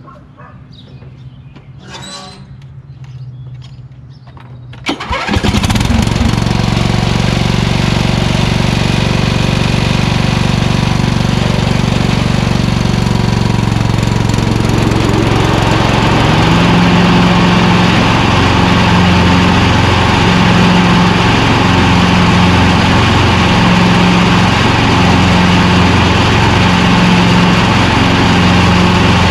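MTD Yard-Man lawn tractor's 15.5 hp Briggs & Stratton engine starting about five seconds in and then running loud and steady. About fifteen seconds in the sound changes and takes on an even throb about once a second.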